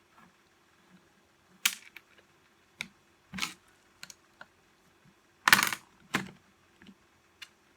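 Irregular clicks and knocks of small hard parts and tools being handled during reassembly of a reciprocating saw, with the loudest knock about five and a half seconds in.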